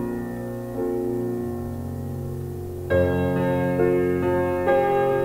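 Slow piano music: sustained notes and chords that ring on, with a fuller chord about three seconds in and new notes roughly every half second after it.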